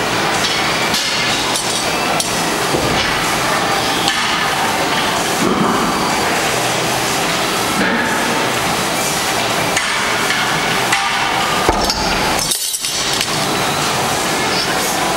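Metal clanking and knocking of weight plates on a loading pin being lifted on a Rolling Thunder grip handle, over a steady background din of a gym.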